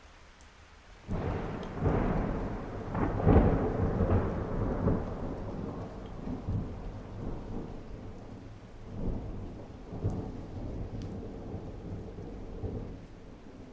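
A clap of thunder breaks suddenly about a second in and rolls on as a long, deep rumble that swells again twice before fading, over steady rain.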